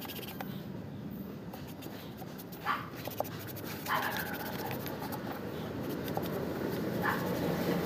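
Steady scratching and rubbing, with a dog giving short yips about a third of the way in, again about halfway, and once more near the end.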